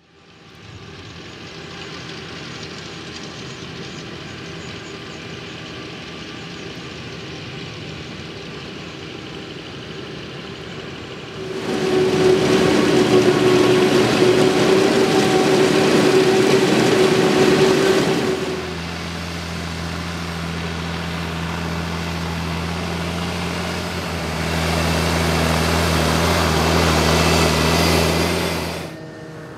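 Krone Big X 700 forage harvester chopping maize: its engine and chopper run steadily with a constant whine, much louder from about 11 seconds in as the 10-row header cuts the stalks. From about 18 seconds a deeper, steady engine drone takes over as a Fendt tractor runs close by.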